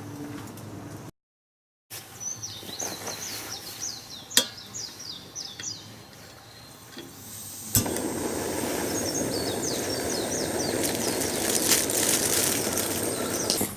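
Small birds singing in short runs of quick falling chirps, twice. Between them come a sharp click and, from about eight seconds in, a louder steady rushing noise.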